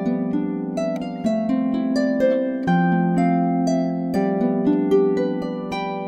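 Harp music on a Dusty Strings FH36S cherry lever harp: a melody of plucked notes, one after another, ringing over lower notes held underneath.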